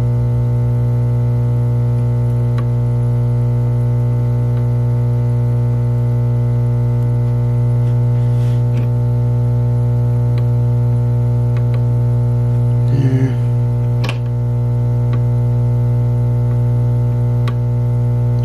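Steady droning background music: a held synthesizer chord over a loud low hum that does not change, with a brief soft knock about two-thirds of the way through.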